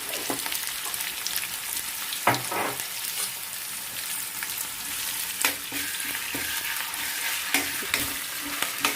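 Ginger-garlic paste frying with onions and curry leaves in hot oil in a kadai, a steady sizzle. A spatula scrapes and knocks against the pan several times as it is stirred.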